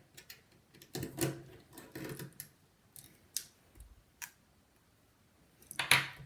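Small precision tools clicking and scraping against the internals of an iPhone 5 being taken apart, a scattering of sharp ticks and short scrapes. The loudest handling noises come about a second in and again near the end.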